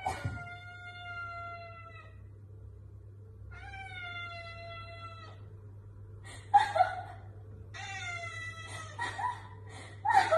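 Tabby cat meowing in long drawn-out calls, three of them about two seconds each with the pitch sinking slightly, and shorter, louder calls between them toward the end.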